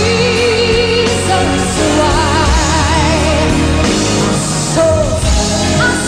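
A woman singing a pop ballad live over band accompaniment, holding notes with a wide vibrato.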